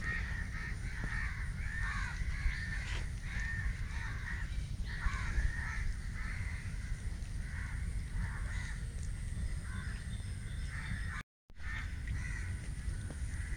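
Many birds calling over and over in short, rising and falling calls, over a steady low rumble. The sound cuts out for a moment about eleven seconds in.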